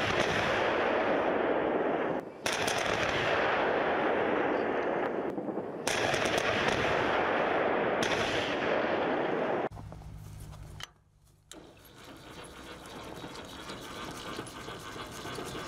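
Military weapons firing in loud, continuous, rapid volleys, in three stretches of a few seconds each with abrupt cuts between them. About ten seconds in, the firing stops and gives way to a much quieter low rumble.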